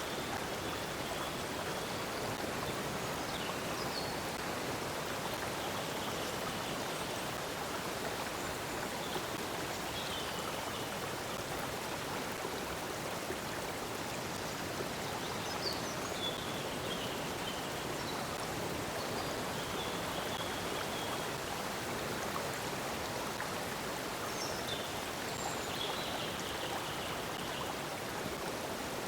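Steady rushing of a flowing stream, with faint bird chirps now and then above it.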